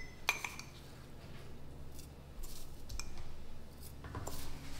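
A metal measuring spoon scooping dried oregano out of a small glass jar and tipping it into mason jars: a few light clicks and soft scrapes of metal on glass.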